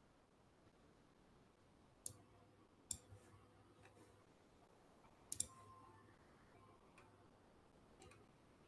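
Near silence over room tone, broken by about five faint, sharp clicks spaced irregularly, the loudest a quick double click about two-thirds of the way through.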